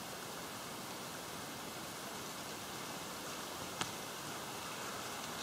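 Steady rushing hiss of whitewater in the standing waves around a sea kayak's bow, with a single sharp click a little before four seconds in.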